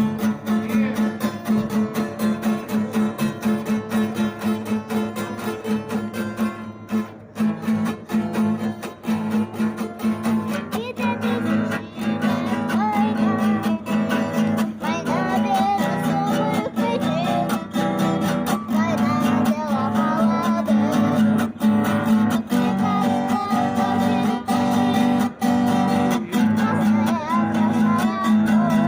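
Acoustic guitar strummed in a steady rhythm. About ten seconds in, a wavering melody line joins above it.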